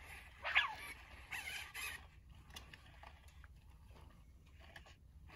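Sony Aibo ERS-1000 robot dog giving a few short electronic puppy-like chirps. The first, about half a second in, sweeps up and down in pitch, and two smaller ones follow within the next second or so. After that there are only a few faint clicks.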